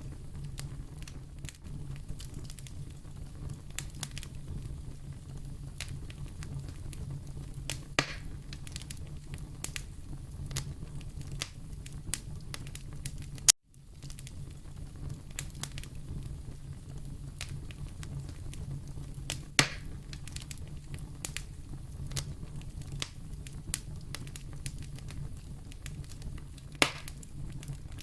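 Wood fire in a fireplace crackling over a steady low rumble, with scattered small snaps and three louder pops. About halfway through there is a sharp click and a split-second dropout.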